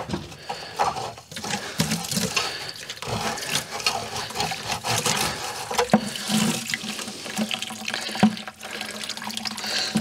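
Sediment-laden water pouring from an electric water heater's drain valve into a plastic bucket, with scraping and a few sharp knocks from a steel rebar rod being pushed into the drain to break up the calcium sediment clogging it.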